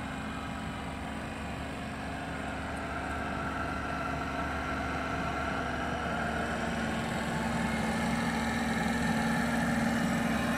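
A small model steam boat's engine running steadily, getting gradually louder as the boat comes closer.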